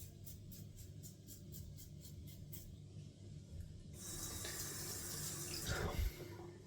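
Caveem safety razor with a Gillette 7 O'Clock blade scraping through lathered stubble in short strokes, several a second. About four seconds in, the tap runs for a couple of seconds, with a knock near the end.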